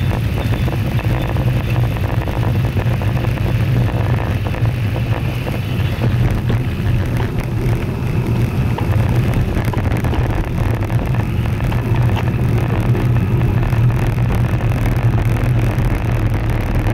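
Steady low rumble of wind buffeting an action camera's microphone, mixed with tyre and road noise, while riding a road bike at speed.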